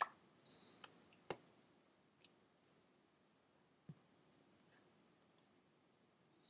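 Near silence broken by scattered light clicks and taps, the sharpest right at the start and another about a second in. A brief high beep sounds about half a second in.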